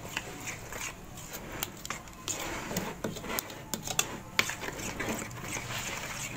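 Metal spoon beating a thick yogurt-and-spice marinade in a bowl: quick, irregular clicks and scrapes of the spoon against the bowl as it stirs.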